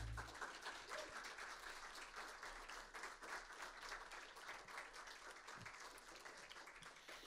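Audience applauding, a dense patter of claps that slowly thins out toward the end. The band's final held low chord cuts off just as the clapping begins.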